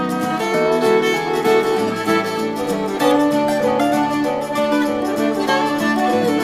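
Instrumental background music, plucked strings under a melody line.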